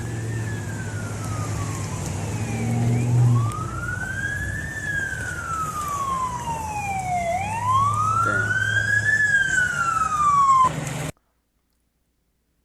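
Emergency vehicle siren wailing, its pitch rising and falling slowly about every four and a half seconds, over a low steady rumble. The sound cuts off suddenly about eleven seconds in.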